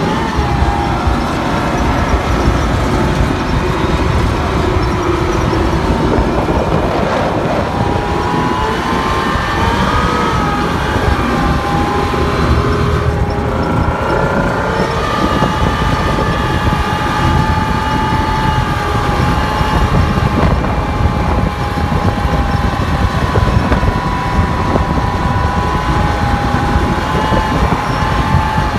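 Military armoured vehicle's engine and drive running loud and steady while under way across grass. A whining tone joins about eight seconds in, steps up in pitch, then holds steady.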